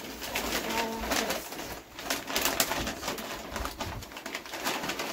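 Brown paper gift bags rustling and crinkling as they are handled and opened, with a short hum-like tone about a second in.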